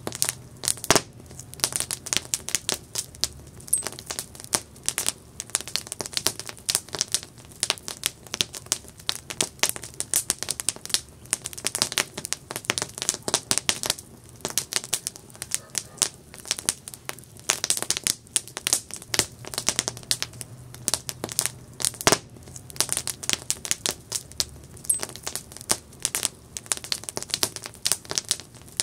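Wood campfire crackling: a dense, irregular run of sharp snaps and pops, with a few louder pops standing out, one about a second in and one near the 22-second mark.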